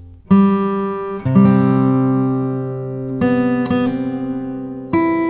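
Acoustic guitar music: strummed chords struck about once a second or more apart, each left ringing as it fades.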